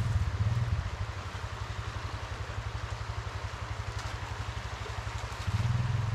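A low engine rumbling at idle with an even, rapid pulsing. It swells louder briefly at the start and again near the end.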